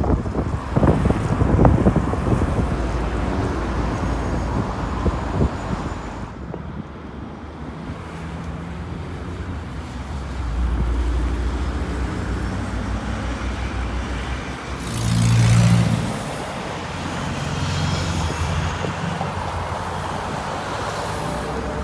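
Outdoor road traffic noise: a steady wash of passing cars and other vehicles on a city road. A louder vehicle with a low engine hum passes about fifteen seconds in.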